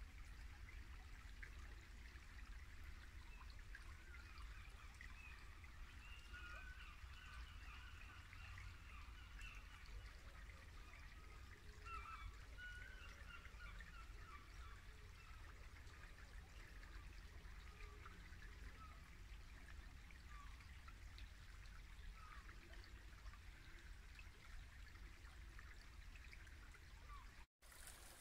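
A small woodland brook babbling softly and steadily, with faint birdsong of short twittering notes, busiest from about four to fourteen seconds in, over a low steady rumble.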